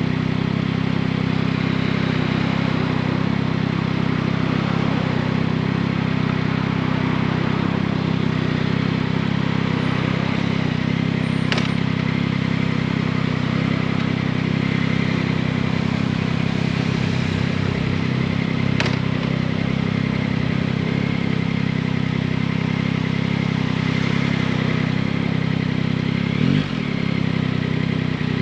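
Yamaha MT-09's 890 cc three-cylinder engine running at a steady engine speed, with an even hiss of wind and road noise over it. Two sharp clicks come around the middle, and near the end the engine note swings briefly.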